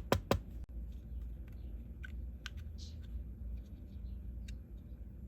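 Three sharp clicks right at the start, then faint scattered taps and clicks as small resin 3D-printed parts are handled and test-fitted.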